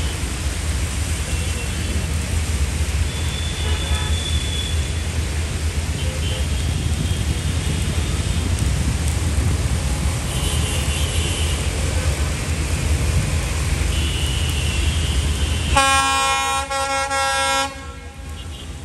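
Diesel locomotive horn sounding one long blast of about two seconds near the end, several tones together, over a steady low rumble and hiss.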